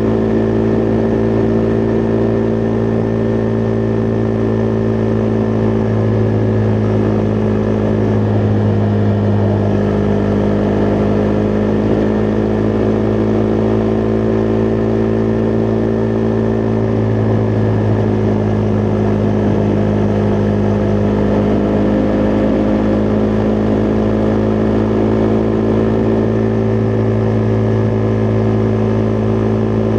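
Husqvarna Vitpilen 401's single-cylinder engine running at a steady cruise while riding, its note easing slightly and picking up again a couple of times.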